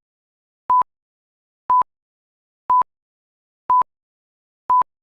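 Short beeps of a pure 1 kHz test tone, one each second, five in all, each switched on and off with a small click. These are countdown beeps on the lead-in of a TV commercial master.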